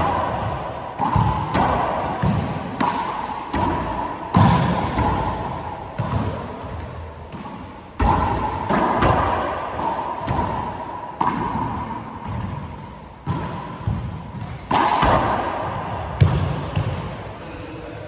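A four-wall handball rally: the rubber ball smacked by hand and rebounding off the court walls and floor, a quick string of sharp echoing smacks at uneven intervals, about one a second, the loudest near the middle and a few seconds before the end.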